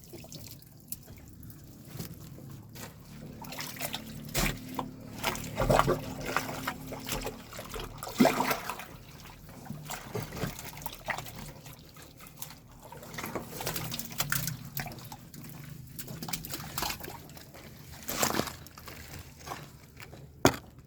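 Dirty drain water sloshing and splashing in a blocked drain or manhole, in uneven splashes, with a steady low hum underneath.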